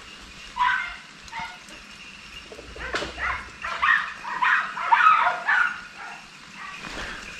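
Hunting dogs barking and yelping in a string of short calls, thickest from about three seconds in: the pack giving tongue on a wild boar's trail.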